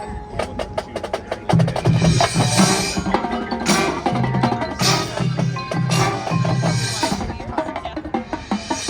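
Drum corps percussion playing: mallet keyboards and a quick run of sharp drum strokes, then a steady pattern of pitched bass drums at two pitches with several cymbal crashes.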